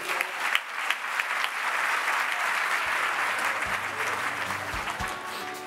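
Audience applauding, building over the first couple of seconds and then tapering off, with music starting up near the end.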